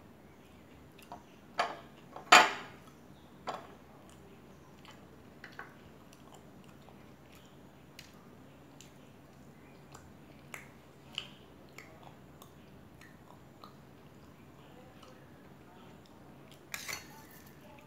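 Porcelain teacup clinking down onto its saucer twice, about two seconds in. Then scattered soft crunches of chewing crisp snacks such as puffed rice, and near the end a spoon scraping in a steel bowl.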